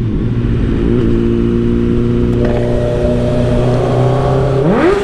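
Suzuki Bandit 650's inline-four engine running steadily under way, then revved up sharply near the end, its pitch climbing fast and starting to drop again.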